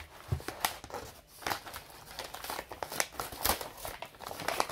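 Brown paper bag rustling and crinkling in irregular crackles as it is handled and stood upright, with one soft low thump near the start.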